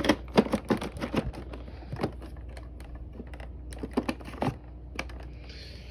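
Irregular plastic clicks and knocks from the Bissell Lift-Off vacuum's dust cup and filter being handled: a quick run of clicks in the first second, then a few scattered knocks.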